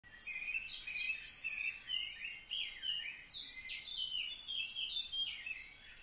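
Several small birds chirping and calling together in a busy run of short, overlapping notes and quick pitch sweeps, dying away near the end.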